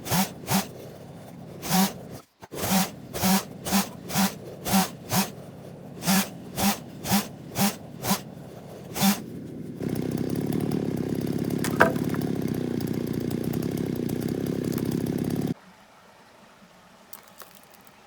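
Hand saw cutting through wood in rhythmic strokes, about two a second, stopping about nine seconds in. A steady low drone follows for several seconds and cuts off suddenly.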